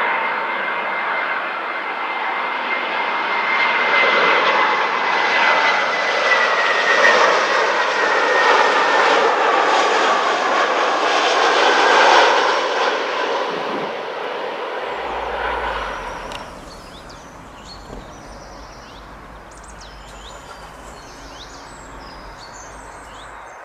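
Lufthansa Airbus A319 jet airliner passing low overhead on landing approach: loud jet engine noise with a high whine that glides slightly down in pitch, loudest about 12 seconds in and fading out around 16 seconds. After that, birds chirping over a low rumble.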